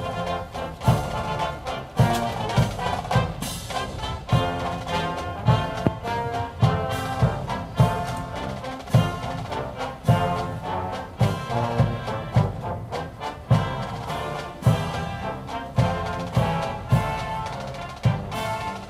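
Military brass band playing a march, with a bass drum stroke about once a second.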